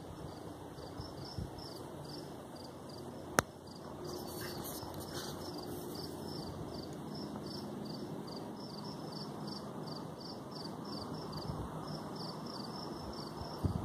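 Crickets chirping in an even, repeating pulse, a few chirps a second, over faint outdoor background noise. A single sharp click about three and a half seconds in.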